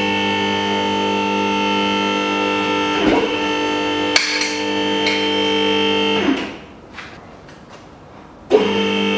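Electric motor of a car lift running with a steady buzzing hum as it raises the car body. It cuts off about six seconds in and starts again near the end, with a couple of short knocks from the lift mechanism around the middle.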